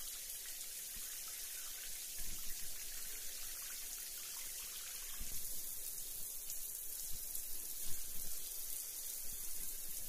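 Steady water-like hissing noise with scattered faint crackles, strongest in the high range.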